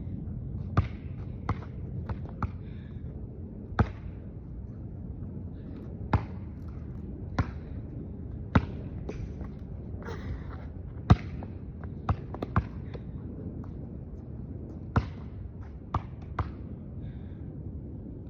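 A basketball bouncing on a hard court, with sharp single bounces at irregular intervals and some close pairs, over a steady low background rumble.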